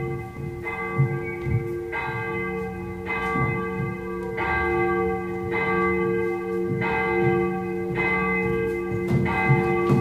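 Bells tolling, struck every second or so, each strike ringing on and overlapping the last so that low bell tones hum steadily underneath.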